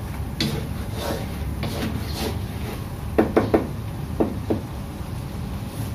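Wooden spatula stirring and scraping a thick sauce in an aluminium wok, with a quick run of three knocks a little after three seconds in and two more about a second later as the spatula strikes the pan, over a steady low hum.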